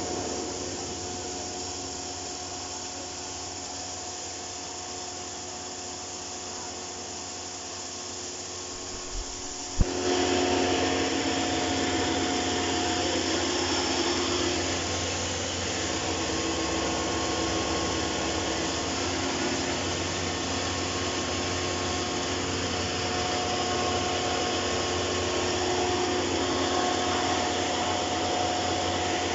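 A 3 HP single-phase electric feed grinder with a cyclone blower running with a steady hum and rushing air. About ten seconds in there is a sharp knock, and from then on the machine runs louder, with a fuller whine.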